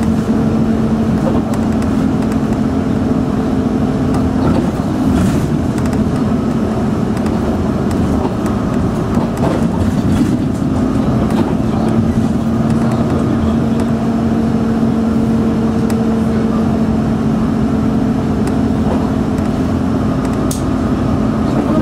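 Bus engine and road noise heard from inside the moving bus: a steady, even drone with a constant low hum.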